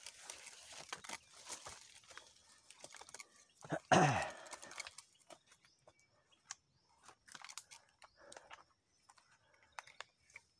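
Crackling and rustling of someone moving along a muddy bank through plants. About four seconds in there is one short, louder sound that falls quickly in pitch, and after that a faint high steady tone.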